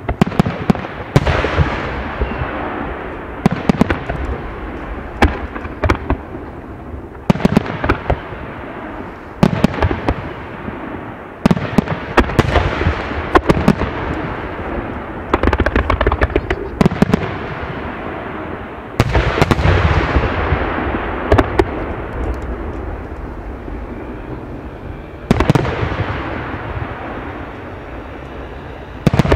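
Aerial fireworks shells bursting in quick succession: sharp bangs every second or two, some in rapid clusters, each followed by a long echoing decay.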